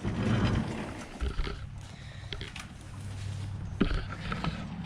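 A horse snorting at the feed: a loud breathy blow in the first second, then quieter with a few light knocks over a low steady hum.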